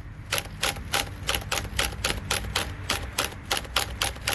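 Makita XPH07 brushless hammer drill straining under heavy load: a low hum with a regular clicking about four to five times a second.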